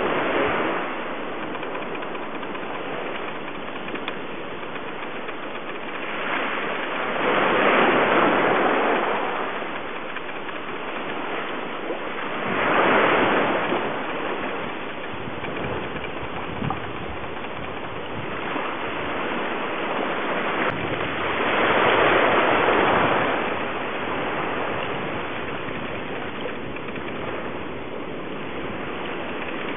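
Ocean surf: a steady wash of waves, swelling louder three times as bigger waves break.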